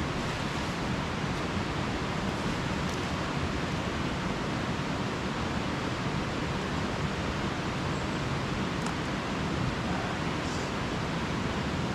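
Steady rush of a river flowing close by, an even wash of water noise, with a few faint light ticks near the end.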